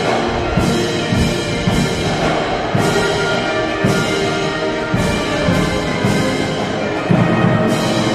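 Military band playing a march: held brass chords over a steady drum and cymbal beat of about two strokes a second.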